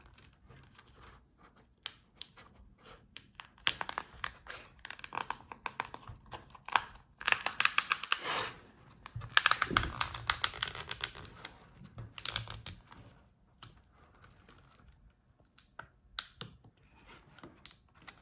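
Plastic front bezel of a laptop display being pried and peeled off its adhesive: dense runs of small crackles and clicks in spells from about four to thirteen seconds in, then scattered clicks.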